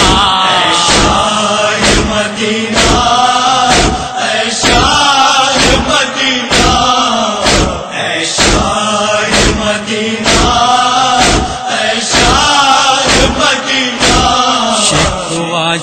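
Male voices chanting a noha, a Shia lament, in a long drawn-out melody, kept in time by a steady beat of sharp strikes a little more than once a second: the matam, hands beaten on the chest.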